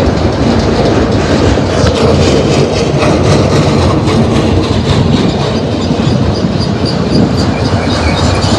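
Cars of a Union Pacific manifest freight train rolling past close by: a loud, steady rumble of steel wheels on rail, with a clickety-clack over the rail joints.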